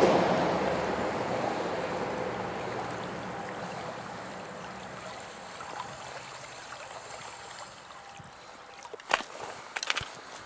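River water rushing, fading steadily. Near the end a sharp knock, then a quick run of clicks.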